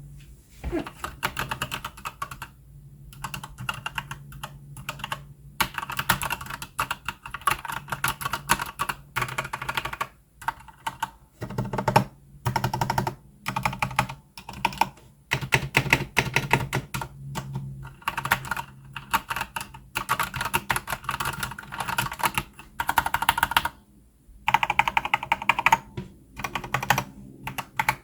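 Typing on a Keychron K4 V2 mechanical keyboard fitted with Gateron Yellow linear switches and XDA-profile PBT keycaps: fast runs of key clacks in bursts, broken by short pauses.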